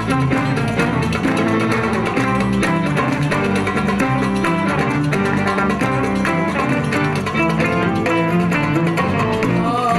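Live ensemble of Turkish instruments playing an instrumental passage: oud and other plucked strings pick quick runs of notes over a steady accompaniment.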